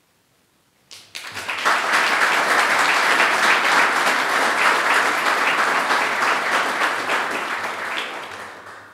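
Seated audience applauding: the clapping starts about a second in, swells quickly to a steady level and fades away near the end.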